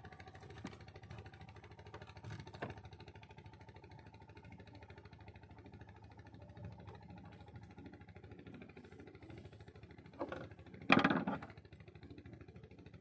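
Small boat engine running steadily at idle, a low hum with a faint steady tone. A few light knocks, and about eleven seconds in a short loud burst of sound.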